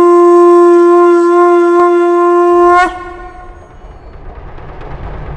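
A conch shell (shankh) blown in one long, steady, loud note that cuts off suddenly about three seconds in. As it ends, a low rumbling bass comes in and slowly builds.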